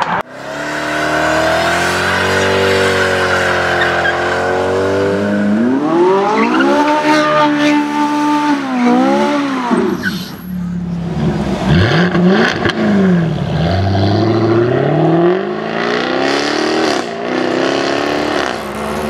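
Performance car engines revving, the pitch climbing and falling, with a break about ten seconds in. After it, engines rise and fall in pitch again as cars accelerate.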